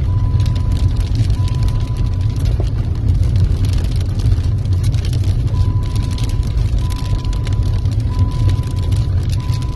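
A car driving on a rough dirt road: a steady low rumble of engine and tyres with many small rattles and knocks, and a faint thin high tone that comes and goes.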